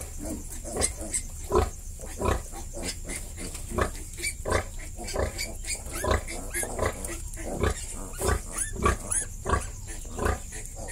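Nursing sow grunting in a steady rhythm, about one and a half grunts a second, while her litter of piglets suckles, with a few high squeaks from the piglets.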